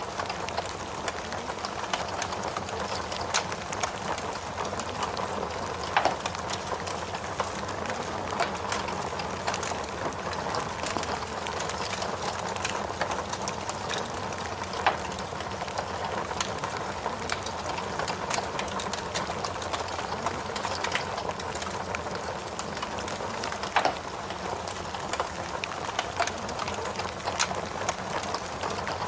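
Rain falling steadily alongside a crackling wood fire: an even hiss of rain with frequent small crackles and a few louder pops from the fire.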